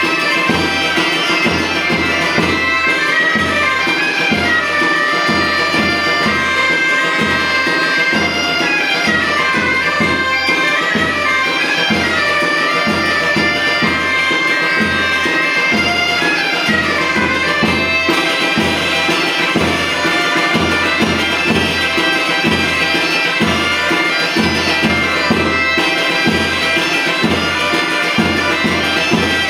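Bagpipe music: a melody played over a continuous drone, with a steady drum beat underneath.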